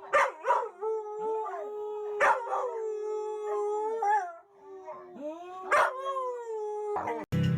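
Blue heeler dog howling in long drawn-out notes, broken by several sharp yips.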